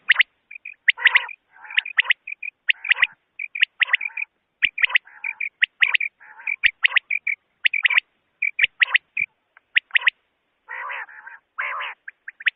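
Common quail calling over and over in rapid series of short, high chirping notes, with a few longer, rougher calls about ten to twelve seconds in. It is a quail call recording of the kind played to lure quail for hunting.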